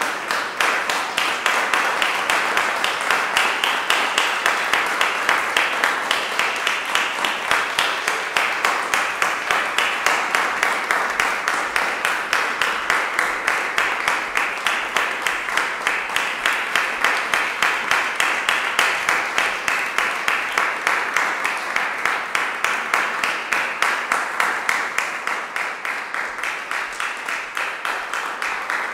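Audience applauding, the clapping settling into an even rhythmic beat, a little quieter near the end.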